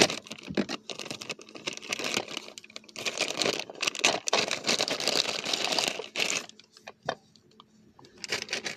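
Thin plastic bag of a Happy Meal toy crinkling and rustling in the hands as the toy is worked out of it, in quick crackly bursts that stop about six and a half seconds in, followed by a light click or two.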